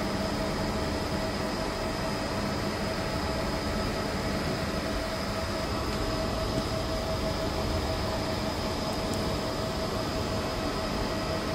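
Steady mechanical hum with a constant whine, running without change.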